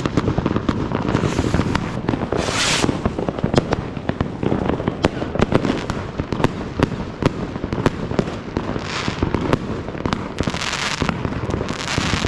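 Fireworks going off all around: a dense, irregular stream of bangs and cracks from firecrackers and rockets. Louder hissing, crackling bursts come about two and a half seconds in and again several times near the end.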